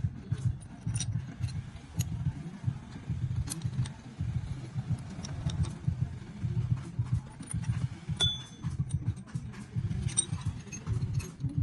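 Light metallic clinks and taps of tools and engine parts being handled, over a low, uneven rumble.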